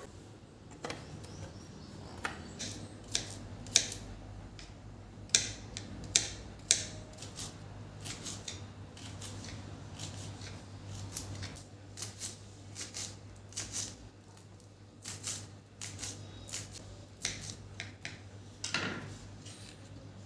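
Irregular clicks and light knocks of kitchen utensils being handled, with a steady low hum through the middle stretch.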